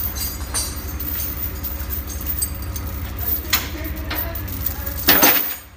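A vehicle engine idling steadily, with a few scattered knocks and a louder, brief burst of noise about five seconds in.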